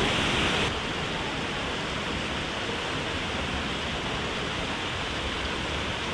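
Waterfall rushing steadily into a pool, an even noise of falling water; it drops a little in level less than a second in and then holds steady.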